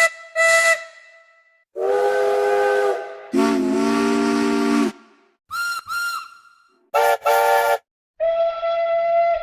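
A run of different steam locomotive whistle sound effects, each a different engine's whistle: two short toots, then a long chord blast, a lower long chord blast, two short high toots, two short chord toots, and a long single-note blast near the end, with a breath of steam hiss.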